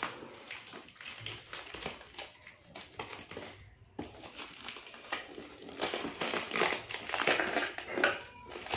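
Clear plastic wrapping around a parcel crinkling and crackling as it is handled and cut open with scissors. It breaks off briefly a little before halfway and is louder in the second half.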